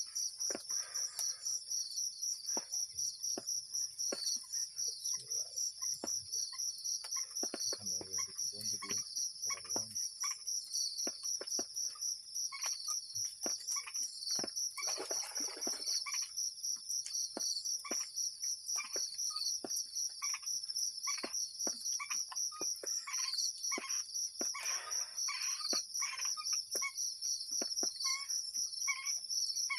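Chorus of crickets or similar insects: a steady, rapidly pulsing high-pitched trill, with scattered faint clicks and knocks.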